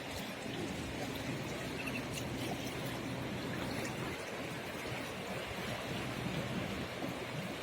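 Seawater trickling and washing among rocks at the shoreline: a steady wash with a few faint clicks and drips.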